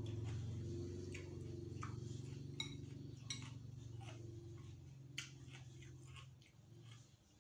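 A metal spoon clinking and scraping against ceramic dishes several times while eating, over a steady low hum that fades out near the end.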